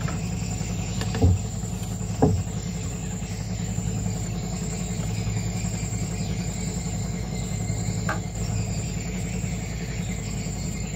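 Steady, high-pitched chorus of night insects over a low, even hum, with a few soft clicks about one and two seconds in.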